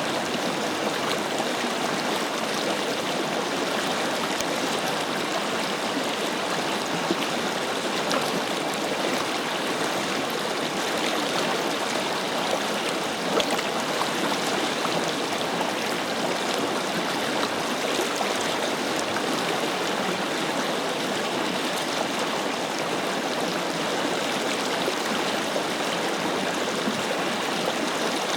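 Forest river flowing steadily over stones: an even rush of water with small splashes and gurgles throughout.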